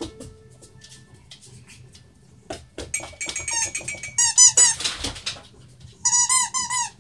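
A puppy biting a rubber squeaky toy: runs of short, quickly repeated high squeaks, the busiest about six seconds in, after a few light knocks of the toy on the floor.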